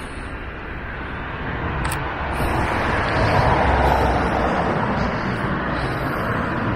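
Steady outdoor rushing noise with a low rumble underneath, swelling louder about two to three seconds in, and a single sharp click about two seconds in.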